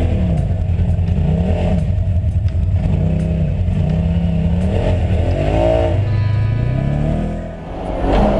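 Polaris side-by-side UTV engine revving up and easing off again and again as it drives, dropping away briefly near the end.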